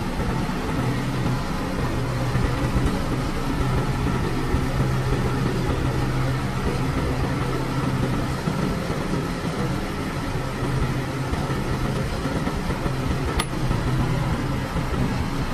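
New Holland 8080 combine harvester's diesel engine idling with a steady low hum. A single brief click comes near the end.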